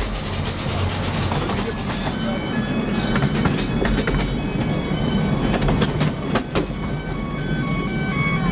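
Miniature railway carriages rolling along on 10¼-inch gauge track, heard from aboard an open carriage: a steady low rumble with many clicks of the wheels running over the rail joints.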